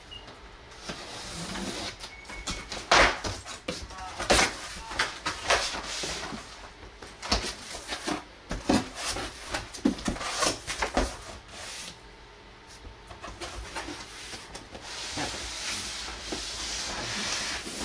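Cardboard shipping box being opened: a steak knife slitting the packing tape, then irregular scrapes, rustles and knocks as the flaps are pulled open and the boxed amplifier inside is handled, with a longer scraping slide near the end.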